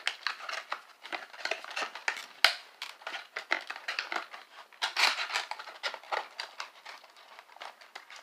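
Cardboard toy box being torn and pulled open by hand: irregular rips, scrapes and crinkles of the flaps, with a few louder rips.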